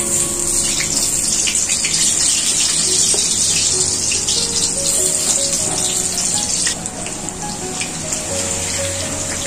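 Whole peeled potatoes frying in hot mustard oil in a kadai as more are slid in, the oil sizzling steadily with crackles. Soft background music with held notes plays underneath.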